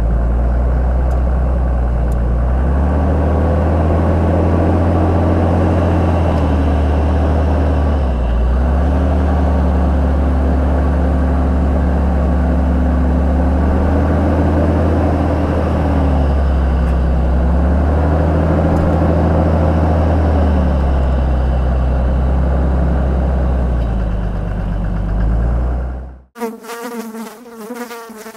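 Mercedes G-Wagen 300GD diesel engine working at crawling speed on a steep rock climb, its drone rising and falling as the revs go up and drop back several times. It eases off, then cuts off abruptly a couple of seconds before the end, followed by a short electronic sting.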